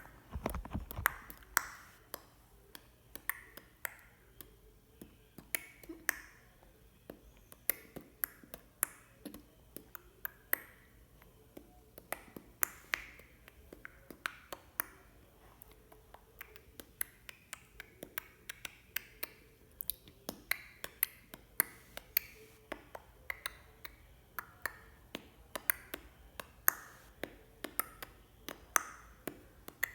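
A person making clicking sounds with the mouth: a long, irregular run of sharp clicks, a few every second, some with a short ringing pitch.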